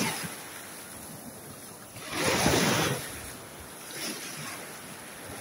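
Small waves breaking and washing up a sandy beach in foam, the surf swelling and fading in surges, the loudest about two seconds in and a weaker one near four seconds.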